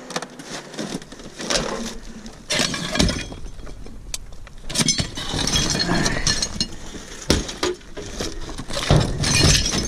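Scrap being smashed apart to free brass pieces: a series of irregular hard blows with breaking, crackling and the clink of loose fragments.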